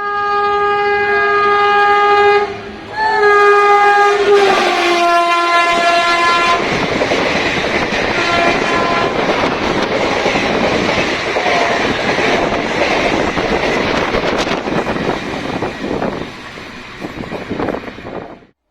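An Indian Railways express train sounds two long horn blasts as it approaches, the pitch dropping during the second as it passes. The train then rushes by with loud wheel and track noise that fades away near the end.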